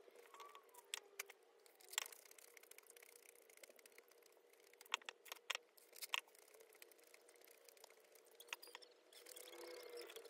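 Metal spoon clinking and scraping against a ceramic bowl of noodles: a few sharp, scattered clinks, then a short stretch of stirring near the end, over a faint steady hum.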